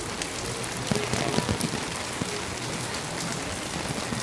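Steady rain: an even hiss dotted with the ticks of individual drops landing close by.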